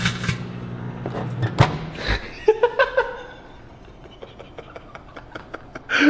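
Microwave oven humming with a foil-lined chip bag inside, the hum stopping about one and a half seconds in, with a few sharp clicks around then. Brief laughter follows, then faint scattered crackling ticks.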